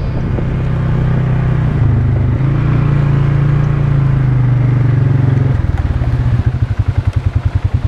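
ATV (quad) engine running as it rides along, its pitch shifting about two seconds in, then dropping to an idle with an even pulsing beat in the last couple of seconds as the machine stops.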